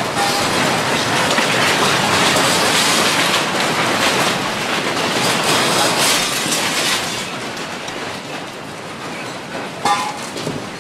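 Strong earthquake shaking: a loud, continuous rumbling and rattling of buildings and fittings that eases after about seven seconds, with a sharp knock near the end.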